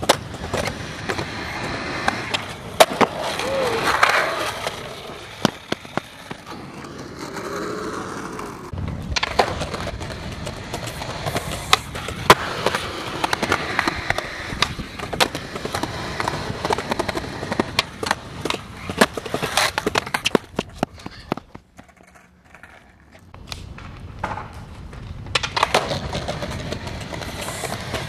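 Skateboard wheels rolling on concrete pavement, broken by many sharp clacks of the tail popping and the board slapping down on landings. The rolling drops away briefly about three-quarters of the way through, then starts again.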